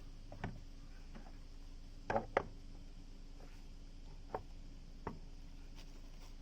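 A few short, separate knocks and clicks, with a quick cluster of three about two seconds in, over a faint steady hum.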